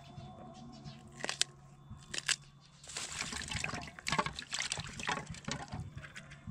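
Long green chili peppers being washed by hand in a frying pan of water: splashing, sloshing and dripping in short strokes, busiest in the second half. A low steady hum stops a little under halfway through.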